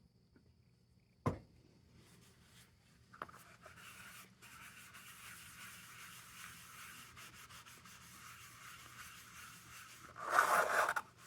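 Shop paper towel rubbed by hand over the lantern's plastic lens to polish it with Brasso: a faint, steady rubbing that starts a few seconds in and gets louder briefly near the end. A single sharp click comes about a second in, before the rubbing starts.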